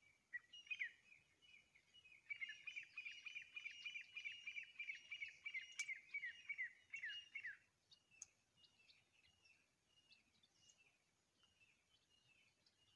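Grey francolin pair calling: a fast run of short ringing notes, about five a second, starting about two seconds in and lasting some five seconds, then fainter scattered calls.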